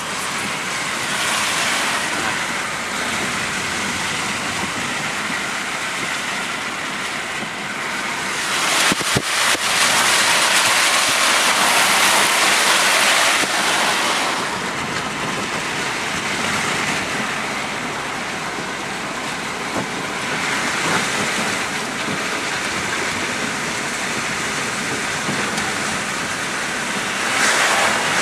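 Storm rain beating on a moving car's roof and windshield, heard from inside the cabin with the hiss of tyres on a wet road. The rush swells for several seconds from about eight seconds in, and again near the end.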